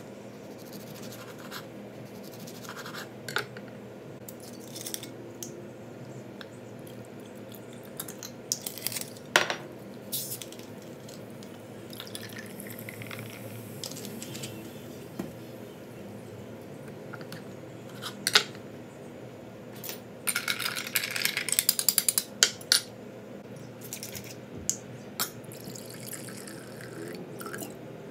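Hands preparing a drink on a wooden cutting board: a serrated knife cutting a lemon, glass and utensils knocking on the board, and liquid poured from a bottle into a glass, with a dense stretch of glugging and splashing about two-thirds of the way through. A low steady hum runs underneath.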